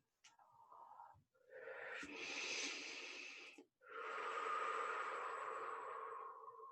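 A person's slow, deep breaths close to the microphone: a short faint breath, then two long audible breaths of about two and three seconds.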